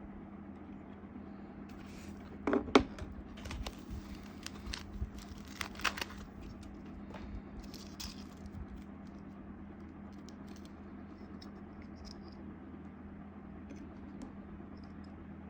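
Small hardware being handled: a run of clicks, taps and light scratches, loudest a couple of seconds in and thinning out after about six seconds, over a steady low hum.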